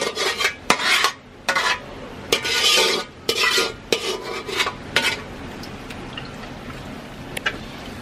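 Metal spoon stirring and scraping boiled beef pieces into thick masala in a metal pot, with clinks against the pot and a low sizzle. The stirring stops about five seconds in, leaving a quieter sizzle with an occasional clink.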